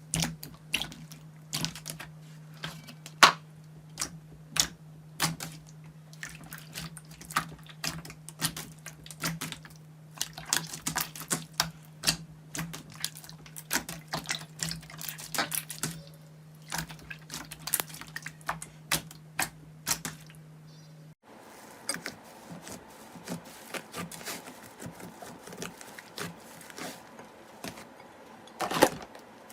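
Slime being squished and pressed by hand, making rapid, irregular sticky clicks and pops. A steady low hum runs under it until an abrupt change about two-thirds of the way through, after which the clicks are sparser.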